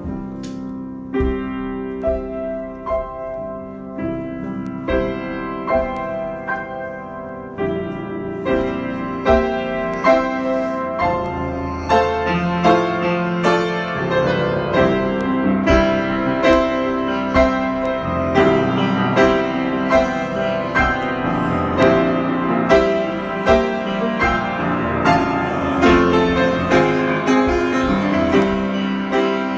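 Solo piano improvisation: struck chords and melody notes ringing and decaying, sparse at first, then busier and louder from about twelve seconds in.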